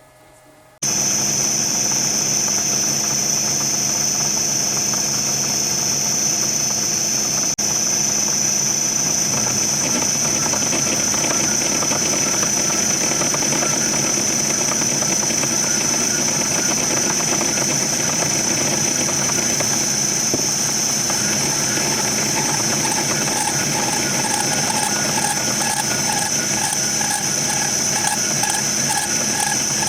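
A power machine tool running steadily with a high, constant whine, cutting in abruptly about a second in; in the last few seconds a fast, even pulsing joins it.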